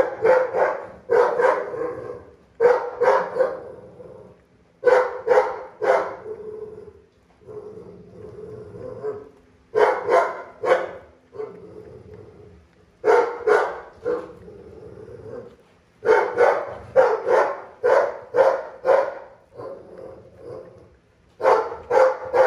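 A dog barking in short runs of several sharp barks, with pauses of a second or more between the runs.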